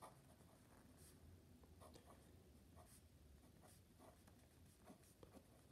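Faint scratching of handwriting on lined notebook paper: short, quiet strokes every half second or so as an equation is written out.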